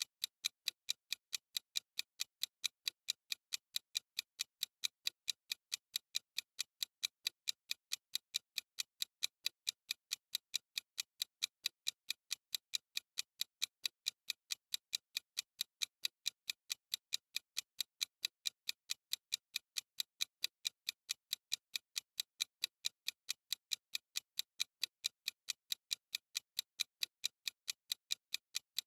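Clock ticking sound effect: sharp, evenly spaced ticks, about two a second, keeping a steady beat.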